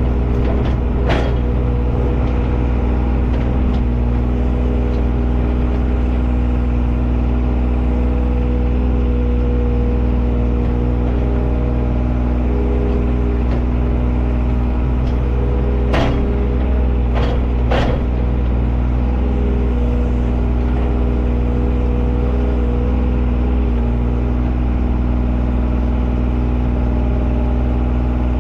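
Excavator's diesel engine running steadily while digging, with a few sharp knocks: one about a second in and three close together past the middle.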